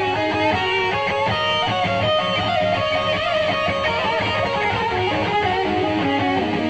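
Heavy rock music led by an electric guitar playing a melodic line of held notes that step up and down, over a steady low bass part.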